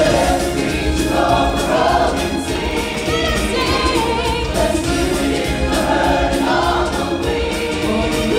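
Stage-show music with a choir singing over a steady low beat.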